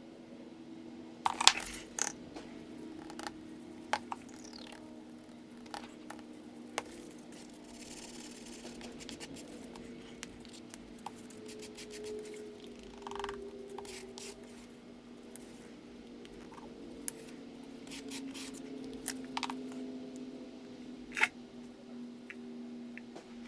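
Scattered clicks, taps and short scrapes of small hand work, over a low steady hum.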